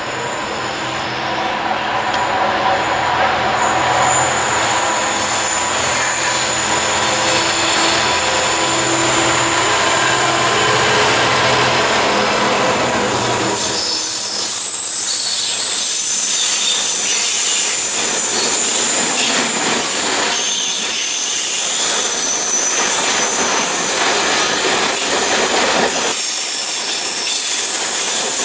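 Diesel-hauled freight train passing at speed: the locomotive's engine runs loudly for about the first 13 seconds, then a long rake of loaded open box wagons rolls by with wheel rumble and a thin high wheel squeal.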